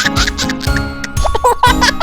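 Upbeat background music with a steady beat, overlaid with high, squeaky voice-like sound effects.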